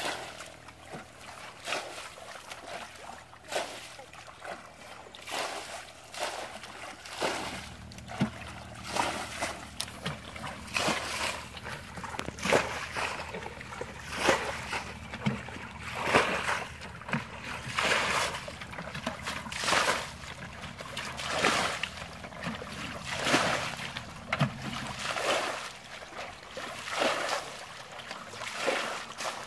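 Repeated splashes of muddy water as a plastic bucket scoops water out of a shallow pond and dumps it onto the bank, about one every second or two.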